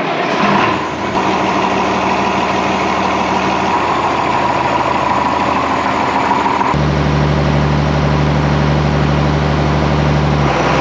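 John Deere 6510 tractor's six-cylinder diesel engine running steadily. About two-thirds of the way in, the sound changes abruptly to a lower, stronger engine note as the tractor is driven.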